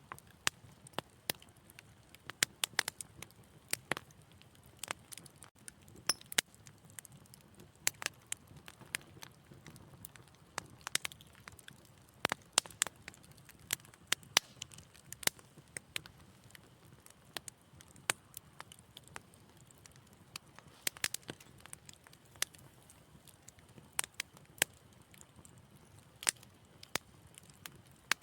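Wood fire crackling in a fireplace: irregular sharp pops and snaps, sometimes several in quick succession, over a faint low rumble of the flames.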